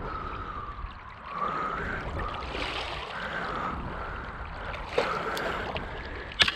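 Shallow river current running and gurgling steadily, with two sharp clicks, one about five seconds in and a louder one near the end.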